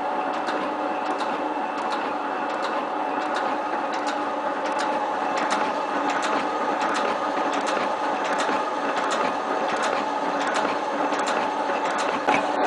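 7305T metal shaper running: a steady mechanical hum with a regular ticking from its reciprocating ram drive.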